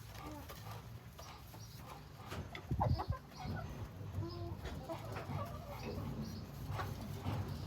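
Chickens clucking, with many short scattered calls over a steady low hum; the loudest moment comes about three seconds in.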